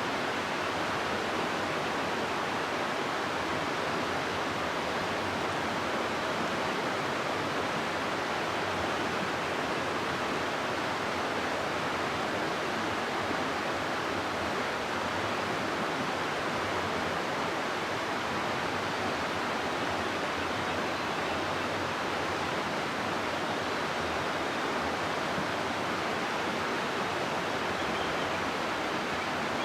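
River water rushing steadily over rocks through a gorge: a constant, even roar of flowing water with no pauses or changes.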